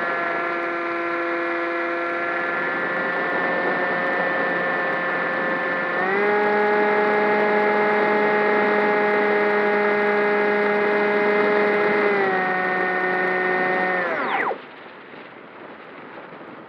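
HobbyKing Bixler RC glider's brushless electric motor and pusher propeller, heard on board, whining at part throttle. The throttle opens up about six seconds in and eases slightly later. About two seconds before the end the motor is cut and the whine falls away, leaving wind rush as the plane glides.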